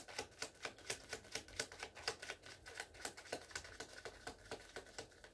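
Tarot cards being handled, a faint run of quick light clicks, about five or six a second and uneven.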